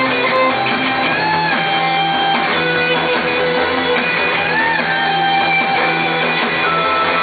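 Live rock band playing without vocals, an electric guitar leading with long, bending notes over a steady backing.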